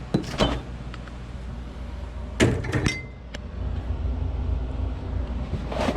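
Refrigerator door being opened and shut with a glass bottle handled: a few sharp knocks and clatters near the start, a cluster about two and a half seconds in, and another near the end, over a steady low hum.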